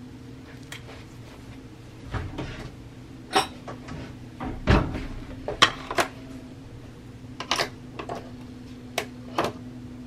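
A string of light knocks and clicks as a Nespresso capsule and a ceramic cup are set down on a granite counter and a coffee machine, the loudest knock a little before the middle, over a faint steady hum.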